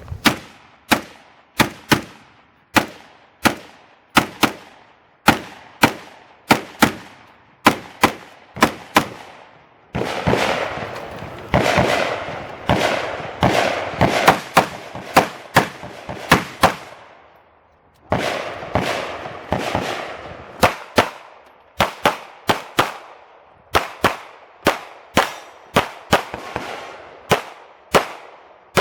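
Gunshots in a 3-gun match stage run: strings of shots about one to two a second, each with a short echo, a denser run of fire a third of the way in, a brief pause, then another steady string.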